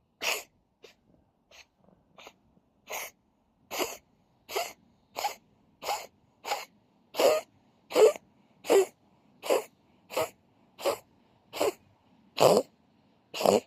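A cat coughing over and over in a fast series of short, harsh coughs, a little more than one a second. The coughs are faint for a couple of seconds, then grow louder.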